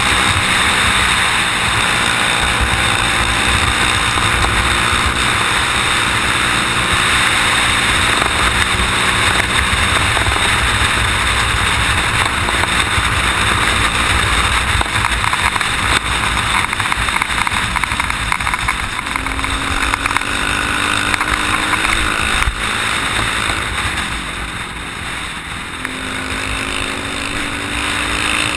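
Off-road motorcycle engine running at road speed on gravel, under a steady rush of wind and tyre noise on the microphone. In the last third the engine eases off briefly and then picks up again, its pitch climbing as it accelerates.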